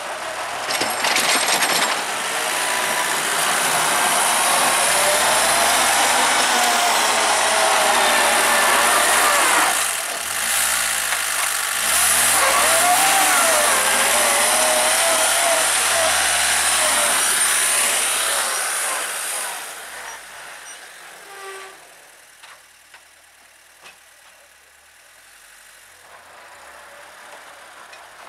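Engine of a homemade mini-tractor running as the tractor drives close past, its revs rising and falling. It grows loud within the first two seconds, dips briefly about ten seconds in, and fades away after about twenty seconds, leaving only a faint background.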